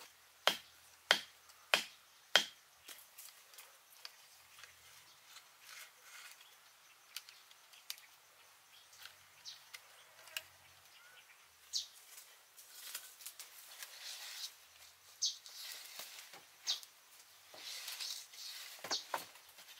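A length of wood used as a mallet knocks a wooden stake into the ground four times in quick succession, loud and sharp. Then come scattered light clicks and knocks of bamboo poles being handled.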